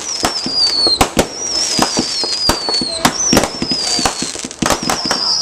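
Fireworks display going off in rapid succession: many sharp bangs and crackles, overlaid by several high whistles that slide slowly down in pitch.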